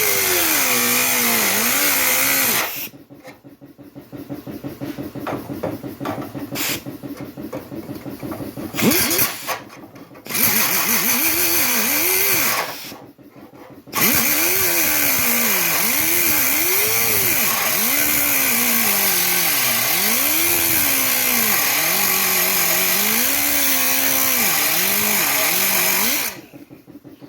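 Power cutting tool cutting through a truck tailgate's sheet steel. Its pitch sags and recovers over and over as it bites into the metal. It stops briefly about three seconds in, again around ten and thirteen seconds, and just before the end.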